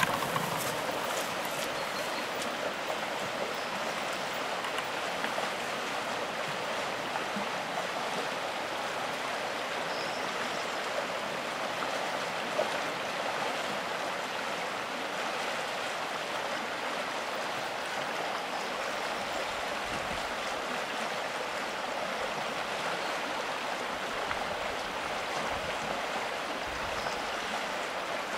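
River water flowing with a steady rushing hiss, with a few faint light clicks in the first couple of seconds.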